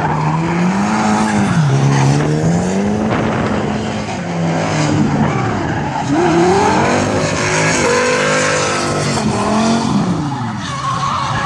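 Drift car engines revving, their pitch rising and falling again and again as the throttle is worked, with tyres screeching as the cars slide sideways through the corners.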